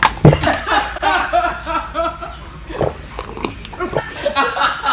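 Boys laughing loudly in repeated bursts, with a sharp knock right at the start.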